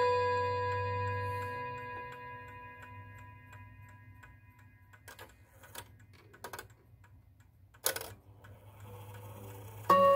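Gustav Becker clock's chime rods ringing on after a hammer strike and slowly fading away. In the quiet that follows come a few light clicks and a louder knock about eight seconds in, then the hammer strikes the rods again just before the end.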